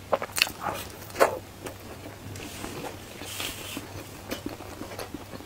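Close-up chewing of a chewy black sesame pretzel-style bun, with wet mouth clicks and smacks every second or so.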